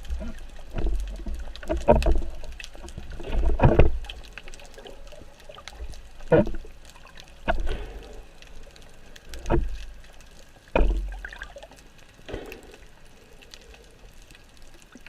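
Water sloshing and gurgling, with irregular muffled thuds and splashes, fewer and quieter in the last few seconds.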